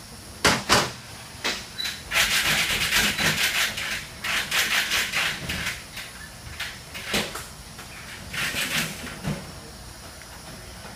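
Compressed air hissing in several bursts from shop air lines and air tools, with sharp metallic clicks and knocks in between.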